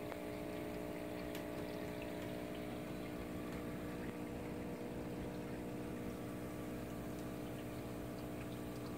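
Reef aquarium equipment running: a steady pump hum with several held tones over a haze of moving water.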